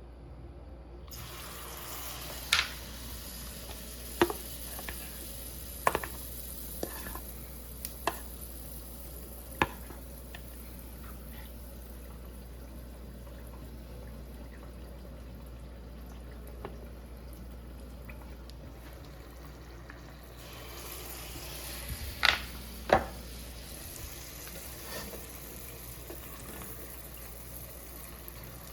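Steady sizzling in a pan, with sharp clicks and knocks of a utensil against the pan every second or two, the loudest two close together near the end.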